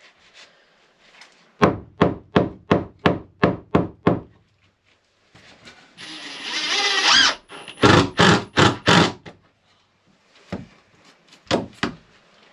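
Hammer blows on timber, about eight in an even run at roughly three a second, knocking wooden infill pieces into place against the hull frames. About six seconds in, a cordless drill whirs up briefly as it drives a holding screw. Four more hammer blows follow, then a few lighter knocks near the end.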